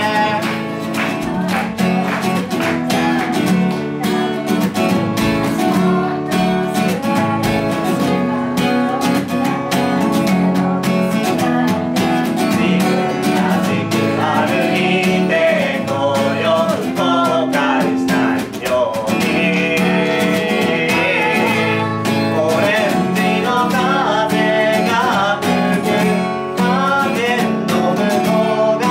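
Acoustic guitar strummed steadily, playing the chords of a song, with a singing voice coming in over it at times.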